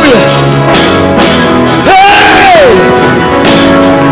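Live gospel praise band playing between sung lines, with a held note that bends up, holds and falls away about halfway through.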